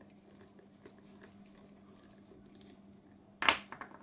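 Faint small ticks of a screwdriver working a screw on a spinning reel's bail arm, then, about three and a half seconds in, one sharp clatter followed by a few quick lighter clicks as the small metal screwdriver is set down on a wooden bench.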